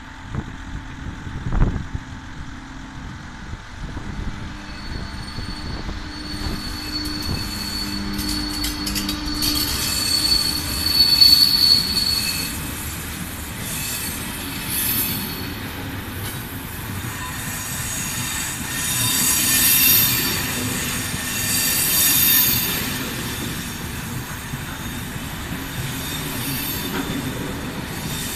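ČD class 362 electric locomotive and its passenger coaches pulling away and rolling past, with a steady rumble of wheels. Over it come high-pitched wheel squeals, loudest about eleven seconds in and again around twenty and twenty-two seconds. A single sharp thump comes about two seconds in.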